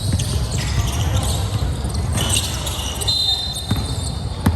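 Basketball bouncing on a court floor during game play, with background voices and a brief high tone about three seconds in.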